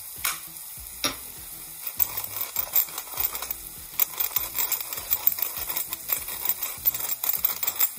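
Chopped onion and garlic sizzling in olive oil in a cast iron skillet, with a brass pepper mill being turned over the pan: dense, irregular crackling from about two seconds in.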